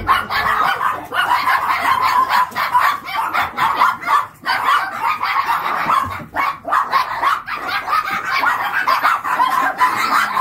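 A pack of small long-haired dogs barking and yipping over one another without a break, excited as they jump up to greet their owner.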